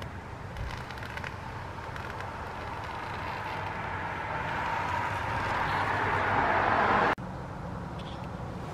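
A steady rushing noise swells gradually louder for about seven seconds, then cuts off suddenly, leaving a low steady hum.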